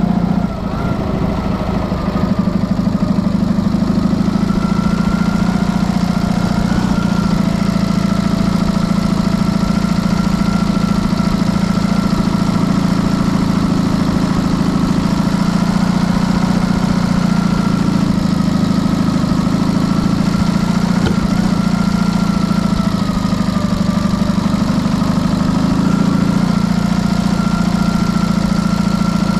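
Dnepr motorcycle's flat-twin engine running steadily, its pitch drifting slightly up and down.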